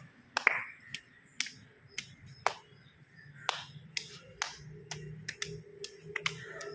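Two people's hands clapping together in a hand-clapping game: a run of sharp, uneven claps, about two or three a second, with a brief pause about three seconds in.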